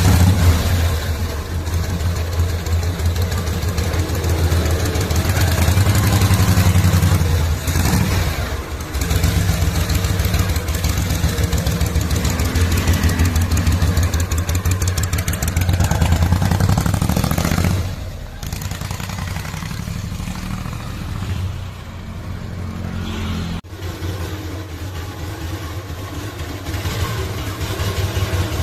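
Engine of a custom chopper motorcycle, an engine from a 1964 Mazda B600, running and being revved up and down. It settles to a lower, quieter run about two-thirds of the way through.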